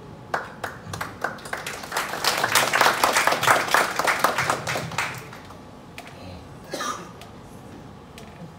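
Audience applauding: scattered claps build into a burst of applause, which dies away about five seconds in.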